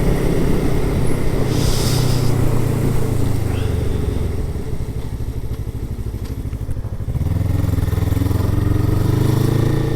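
Suzuki Inazuma 250 parallel-twin motorcycle engine running steadily, heard from the rider's helmet, back in working order after a fault light and a breakdown. About halfway through the engine note drops lower and quieter for a couple of seconds, then picks back up.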